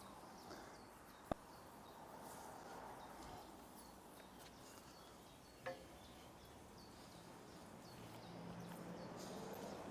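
Near silence: faint outdoor background noise, with a single sharp click about a second in and a brief soft knock about halfway through.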